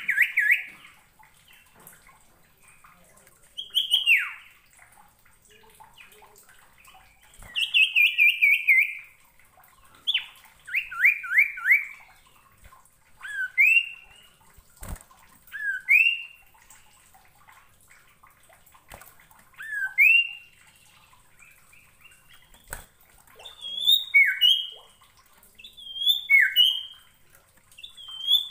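Caged common iora (sirtu) singing: short phrases of clear whistled notes every two seconds or so, some single falling notes, some quick runs of three to five down-slurred notes, later two-note phrases. Two short knocks come near the middle.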